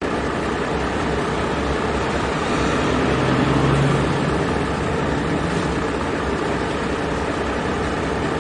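A heavy vehicle's engine running with a steady rumble, its hum briefly rising a little about three seconds in.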